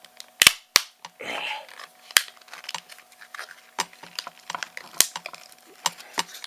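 Plastic case of a laptop battery pack cracking and snapping as it is pried and torn apart along its seam: a few sharp loud cracks, the loudest about half a second in, with a short scraping tear a little after a second in and small clicks and ticks between.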